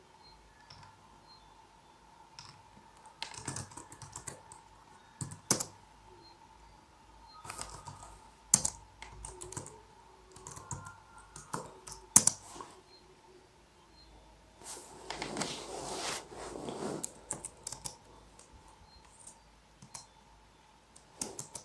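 Typing on a computer keyboard, in short bursts of keystrokes with pauses between, and a longer, busier run about two-thirds of the way through.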